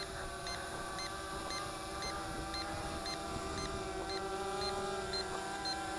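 L109S (Matavish 3) quadcopter's four brushless motors and propellers humming steadily as it descends to land on low-battery return-to-home. A short high beep repeats about twice a second throughout, the low-battery warning.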